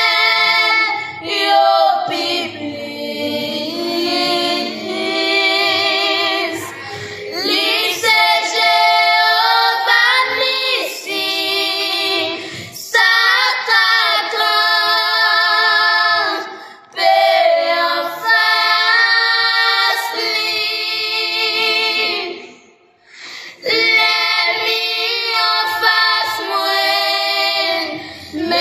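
Three young girls singing a gospel song in Haitian Creole together, phrase after phrase, with a brief pause a little before the end.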